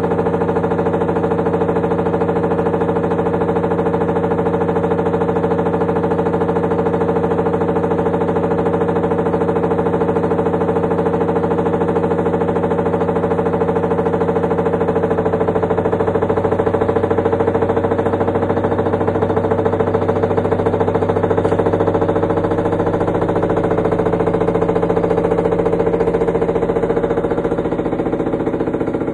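Samsung Ecobubble washer-dryer on its spin cycle, making a loud, steady mechanical hum with several fixed tones that eases slightly near the end. It is an abnormal spin noise, which the service technician put down to the motor, drum and bearing needing replacement.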